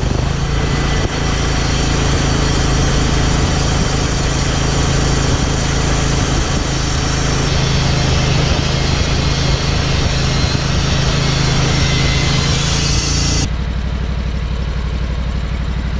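Band sawmill's engine running at speed while the blade cuts through an oak cant, a dense hiss over a steady engine hum. About 13 seconds in the cutting noise stops suddenly and the engine drops back to a lower, steady idle.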